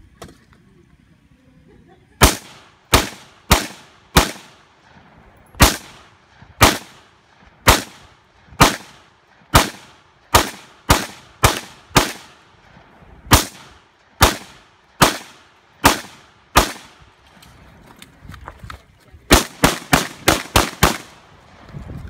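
Handgun fire at close range: about two dozen sharp shots, starting about two seconds in and spaced half a second to a second apart as the shooter engages targets one after another. Near the end comes a quick string of about seven shots.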